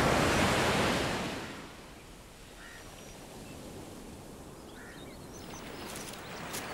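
Sea surf: a wave breaking and washing in, loudest at the start, then easing to a steady lower hiss of the sea. Two short faint bird calls come through the surf.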